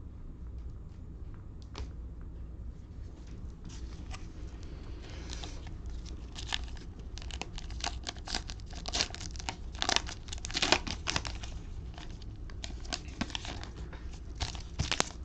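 Clear plastic cellophane wrapper of a trading-card cello pack being torn open and crinkled: a few faint clicks, then dense crackling from about five seconds in.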